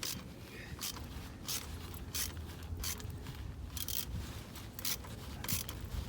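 Metal parts of a scooter's rear wheel assembly scraping in short, repeated strokes, about one every two-thirds of a second, as a part is worked in by hand against resistance.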